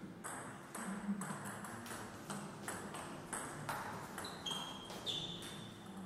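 Table tennis rally: the ball clicking back and forth off paddles and table, a hit about every half second for the first three and a half seconds. It is followed by a few short high squeaks, like shoes on the hall floor as a player lunges.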